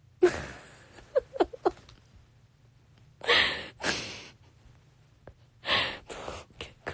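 A woman's sharp breathy gasps and exhalations close to a phone's microphone, with a quick run of three short voiced sounds about a second in.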